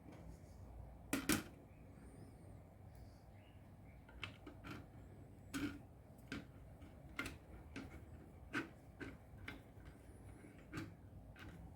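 About a dozen short, sharp clicks and taps at irregular intervals, the loudest about a second in, over a faint steady low hum.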